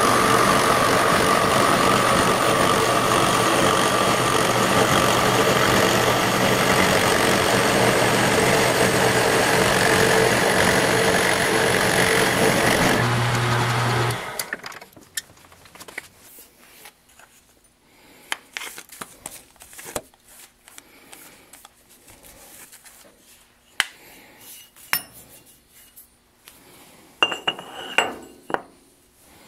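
Milling machine running with its cutter machining the edge of a 6061 aluminum plate: a loud, steady noise with a few held tones that cuts off suddenly about 14 seconds in. After that come scattered quieter clicks, clinks and knocks of the aluminum plate being handled at the vise.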